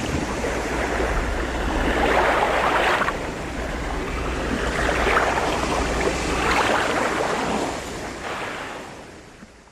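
Ocean waves washing and breaking, surging every couple of seconds, with wind blowing over them and a deep rumble underneath. The sound fades out near the end.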